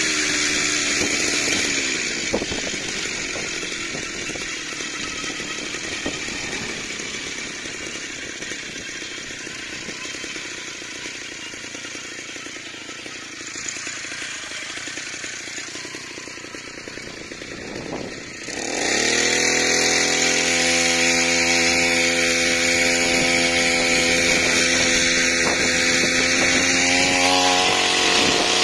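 Small two-stroke brush-cutter engine (Mitsubishi T140) driving a bicycle: it drops from high revs in the first two seconds and runs quieter for a while. About 19 seconds in it revs up sharply and holds a loud, steady high-revving buzz, climbing a little higher near the end.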